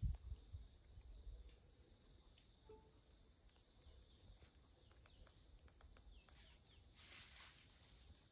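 Faint, steady high-pitched drone of an insect chorus, with a brief low thump right at the start.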